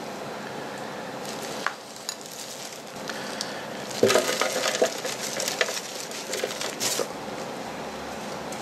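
Damp beetle-rearing soil being handled with plastic-gloved hands and tipped out of a clear plastic case into a tray: a crumbly rustle with small clicks, loudest from about four seconds in until about seven seconds.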